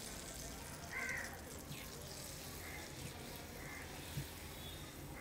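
Hot ghee sizzling faintly in the sugar-water and wheat flour in a steel bowl, while a bird calls several times in the background, loudest about a second in. A light tap of a spatula on the bowl comes near the end.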